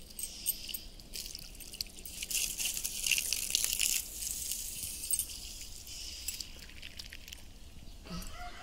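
Water running from a pipe and splashing onto a house wall, a hissing spatter that is loudest for a couple of seconds before the middle.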